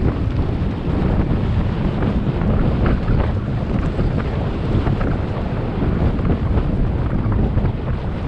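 Wind buffeting the microphone of a bike-mounted or rider-worn camera during a mountain-bike descent, over the rumble of knobby tyres on a dirt trail and the frequent clicks and knocks of the bike over bumps.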